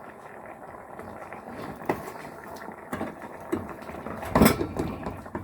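Liquid being poured into a soup pot, a steady splashing, with a loud clank of cookware about four seconds in.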